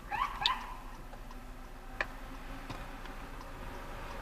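Steady low road and engine noise of a car driving, heard from inside the cabin. A run of short rising chirps fades out in the first half second, and there is a single sharp click about two seconds in.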